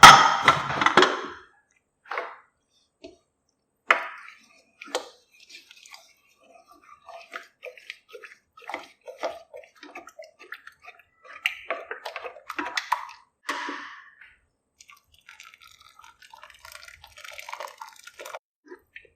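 Kitchen handling sounds of the thick rice porridge: a loud metal clatter at the start, a few knocks, then many small wet clicks and splashes of a spoon or ladle working through the liquid kanji.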